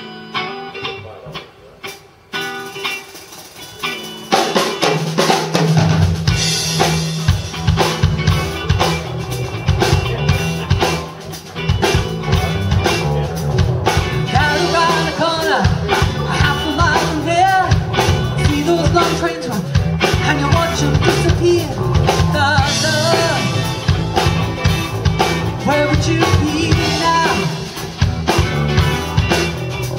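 Live band playing an instrumental passage with drum kit and electric guitar. It starts sparse and quieter, then the full band comes in about four seconds in and plays on with a steady beat.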